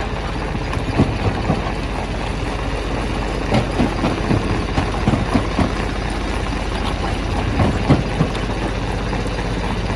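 Stone crusher running with a steady low mechanical drone, with irregular knocks and clatters of rock being broken, clustered about a second in, through the middle, and again near the end.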